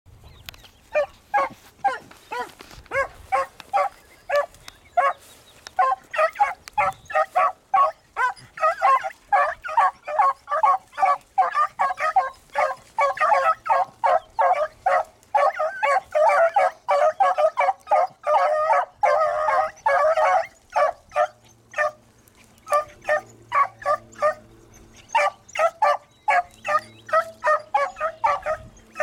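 A pack of beagles baying on a rabbit's track: many short barks in quick succession from several dogs at once, thickest in the middle and thinning out near the end.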